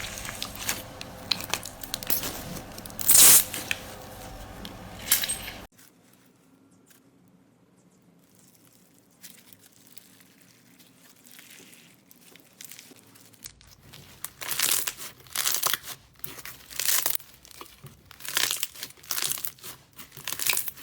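Slime being squeezed, poked and pulled apart by hand, making crackling, tearing sounds in quick bursts. The sound cuts off suddenly about six seconds in, stays faint for several seconds, then comes back as a run of short crackles and pops from about fourteen seconds.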